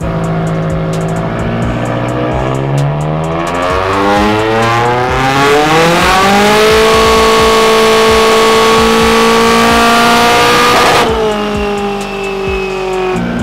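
Nissan 180SX's turbocharged SR20DET four-cylinder running on a chassis dyno: the revs climb under load for about six seconds, then hold high and steady. About eleven seconds in the revs drop sharply and fall away, and near the end they begin to climb again.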